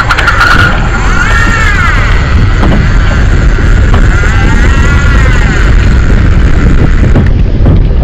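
Loud rushing wind and water noise on a boat-mounted action camera at sea, with a whine that twice rises and falls in pitch.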